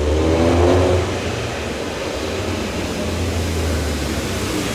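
Off-road 4x4 trial vehicle's engine running with a steady low drone, the revs briefly higher in the first second.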